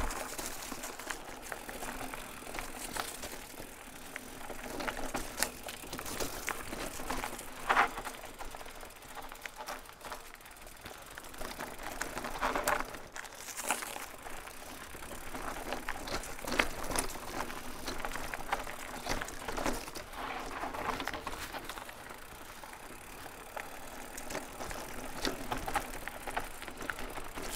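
Haibike SDURO HardNine 1.5 hardtail e-mountain bike rolling downhill on a dirt trail: steady tyre noise with scattered clicks and rattles as the bike goes over bumps, a sharper knock about eight seconds in.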